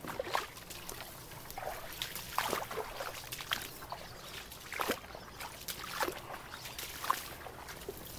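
Water sloshing and splashing in a shallow, muddy canal, in short irregular splashes.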